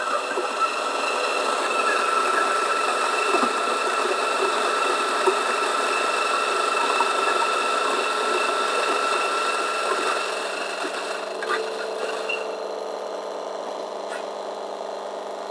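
DF64 flat-burr coffee grinder grinding a dose of beans: a steady motor whine under a dense crunching hiss. About ten to twelve seconds in the grinding noise eases as the beans run out, and the motor spins on empty with a quieter hum and a few light clicks.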